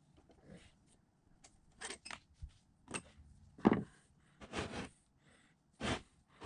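Knocks, clanks and scrapes of an old electric motor being handled on a workbench: a screwdriver working at its end housing, then the motor shifted and turned by hand. The loudest knock comes about three and a half seconds in.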